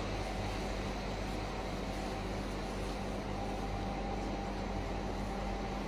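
Steady background hiss with a low hum and a faint steady tone: room tone, with no distinct sounds.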